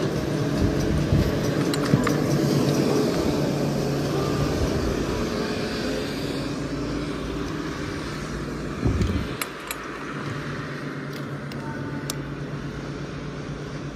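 1980 CTEC chairlift running: a steady low mechanical hum that slowly fades, with a clunk about nine seconds in and a few sharp clicks after it.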